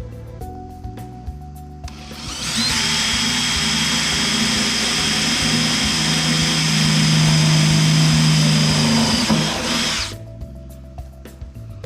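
Electric drill motor running steadily with a high whine for about eight seconds, starting about two seconds in and stopping abruptly, over background music.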